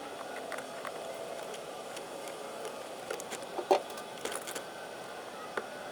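Scattered light clicks and taps of metal parts and tools being handled while fitting a steering wheel hub, with one sharper knock about three and a half seconds in.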